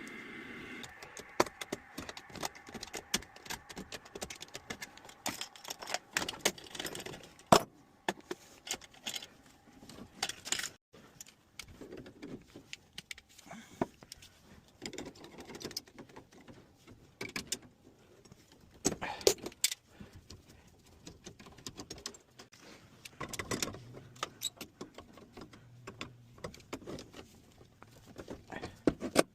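Hand tools and metal parts clinking, clanking and rattling in irregular knocks and scrapes while a steam generator is disconnected and pulled out. A steady hum stops just after the start.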